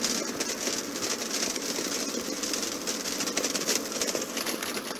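Playback of an experimental electroacoustic sound artwork: a dense, steady noise texture full of fine crackles.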